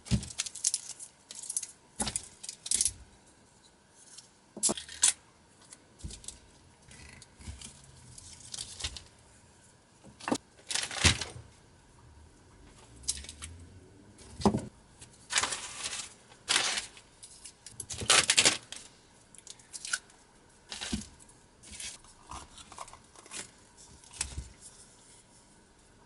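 Cast polyurethane resin parts being pulled out of flexible silicone rubber moulds. Irregular clicks, knocks and scrapes of the moulds and parts being handled, with a few longer rasping, tearing sounds as the rubber is peeled away.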